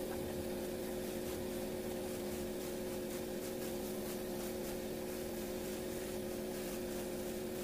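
Air compressor running with a steady hum, with the even hiss of a paint spray gun laying on textured coating.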